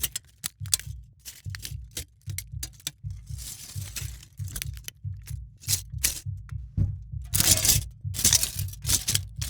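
Sound effects made from an aluminium Monster energy drink can played in quick succession: sharp clicks and cracks, with longer crunching and scraping bursts about three seconds in and near the end, over background music with a steady low beat.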